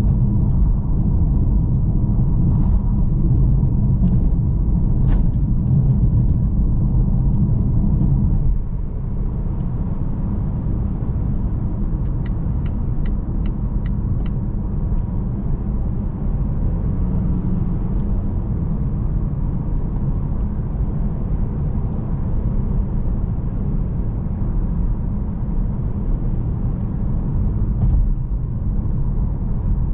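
Volvo S90 on the move: a steady low rumble of engine and road noise, easing a little about eight seconds in. Around the middle comes a short run of about six evenly spaced ticks.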